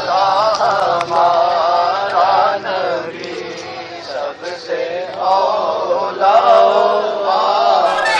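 A group of men's voices chanting a melodic devotional chant together, a little quieter about three to five seconds in.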